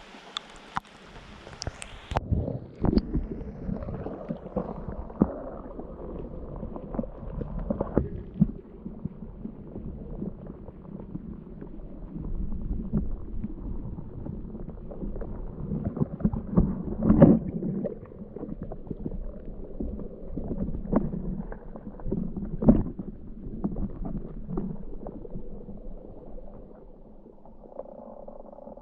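Mountain stream water gurgling and sloshing close up, muffled, with irregular knocks and pops throughout. It turns muffled about two seconds in, and the pops cluster loudest around the middle and again later on.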